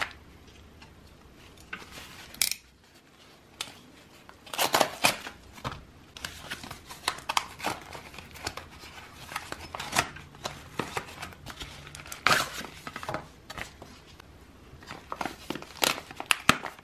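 Plastic packaging being handled and unwrapped, crinkling and rustling in uneven spurts, loudest near the middle.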